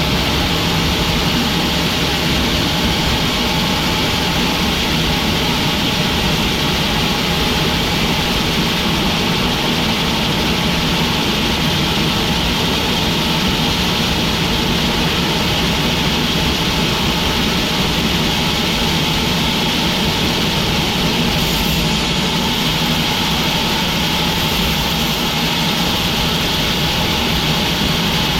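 Sawmill machinery running steadily: a dense, unbroken mechanical noise that does not change.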